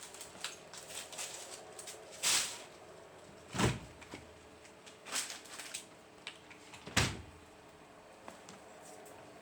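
Scattered small clicks and rustles with two heavier knocks, one about three and a half seconds in and one about seven seconds in.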